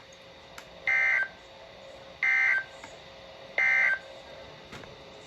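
NOAA Weather Radio EAS end-of-message signal: three identical short screechy digital SAME data bursts about a second and a half apart, marking the end of the warning broadcast, over faint radio hiss.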